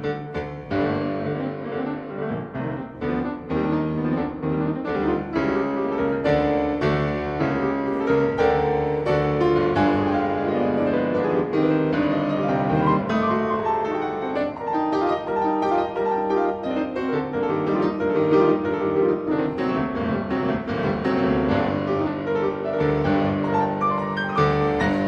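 Piano music, with notes struck one after another and several sounding together.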